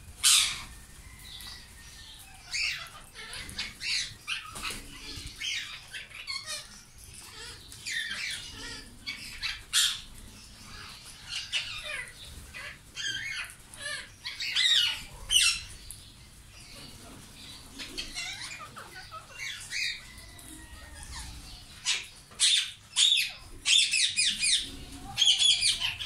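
A flock of Indian ringneck parakeets giving many short, harsh squawks, with wings fluttering as birds take off and land; the calls come thickest and loudest near the end.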